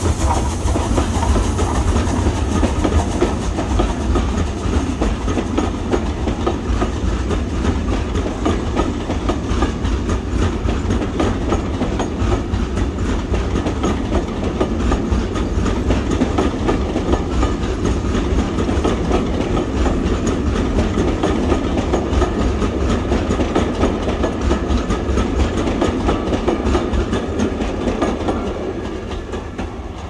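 Steam train running along the track, a loud, steady rumble and clatter that gets quieter near the end.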